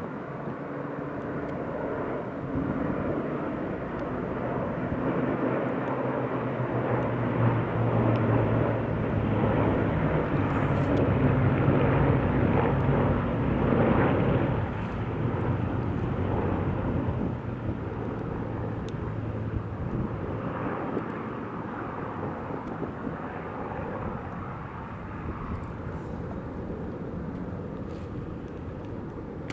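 Several Hawker Hurricanes flying past in formation, the drone of their Rolls-Royce Merlin V12 piston engines growing louder to a peak about halfway through and then fading away.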